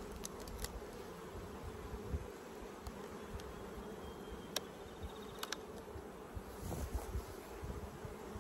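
Honeybees buzzing steadily over an opened hive, an active colony stirred up by the inspection. A few short sharp clicks and cracks come as the hive tool pries the propolised inner cover loose and lifts it off the honey super.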